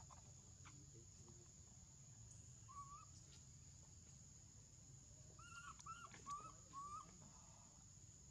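Faint animal calls over a steady high insect drone: one short chirp, then about two-thirds of the way through four quick, arching chirps in a row.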